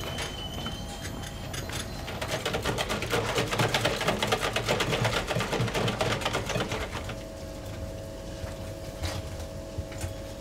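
Bakery dough mixer running with a fast, even clatter of about ten beats a second that eases off about seven seconds in, leaving a steady motor hum.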